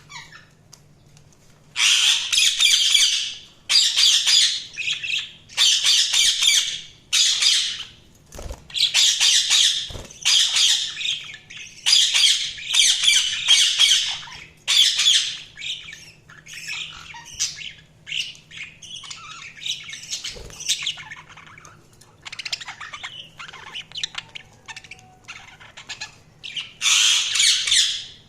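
Budgerigars chattering in repeated loud bursts about a second long, starting a couple of seconds in, with softer chatter for a stretch in the second half.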